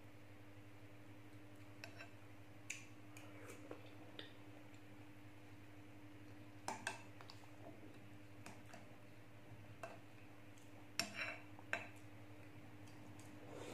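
Metal spoon clinking and scraping against a glass bowl as pieces of cucumber-melon are scooped out of sweet milky liquid: scattered light clicks, with louder pairs of clinks about 7 and 11 seconds in. A low steady hum sits underneath.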